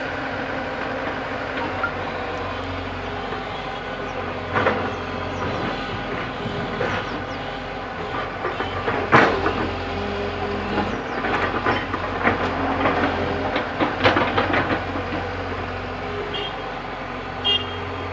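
Backhoe loader's diesel engine running steadily, with scattered metallic clanks and knocks from the machine at work. The loudest knock comes about nine seconds in and a run of them follows from about eleven to fifteen seconds.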